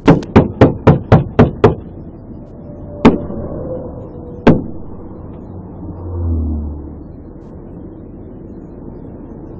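Gunfire from an AR-15-type rifle: a rapid string of about seven shots, roughly four a second, then two single shots a second and a half apart, over steady highway traffic noise.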